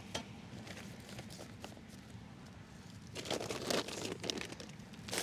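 Newspaper and dry sugar on a beehive's top bars being handled and spread, crinkling and crunching. A few faint clicks come first, and the crinkling starts about three seconds in.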